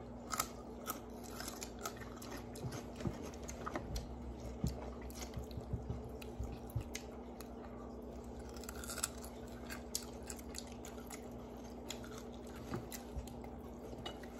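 Close-up mouth sounds of someone chewing food eaten by hand, with many small irregular crunches and wet clicks, over a steady low hum.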